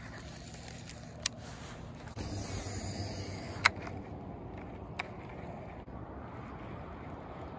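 Steady wind rumble on the microphone with light handling noise, broken by three sharp clicks, the second the loudest.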